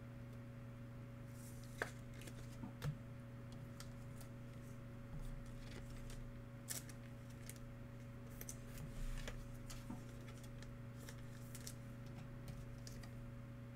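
Trading cards being flipped through and handled by hand: scattered light flicks and clicks of card stock sliding over one another, over a steady low electrical hum.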